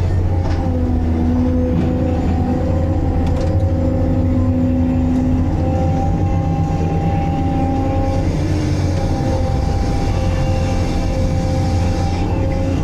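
Multidocker material handler running from inside its cab: a steady low engine hum, with a hydraulic whine that comes and goes in stretches of a second or two as the boom swings and the log grapple works.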